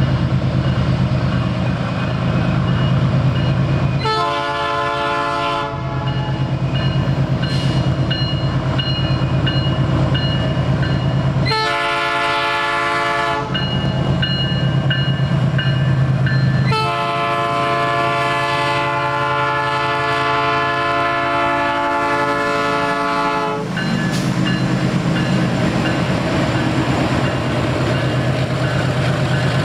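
Diesel freight locomotive engine running steadily while its horn sounds three times, several notes at once: two short blasts about four and twelve seconds in, then a long blast of about seven seconds.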